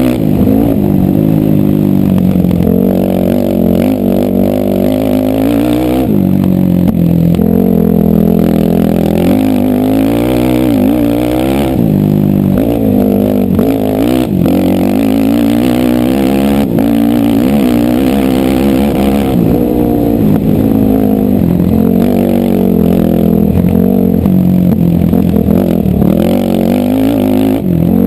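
ATV engine running loud and close, revving up and dropping back again and again as the throttle is worked.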